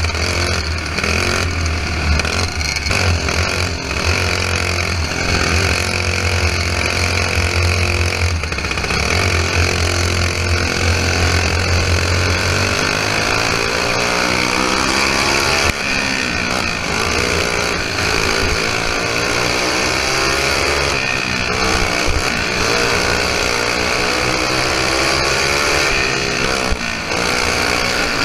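Briggs & Stratton flathead single-cylinder engine of a limited modified dirt kart running hard at racing speed, its pitch falling and rising again and again as the kart goes through the turns and down the straights.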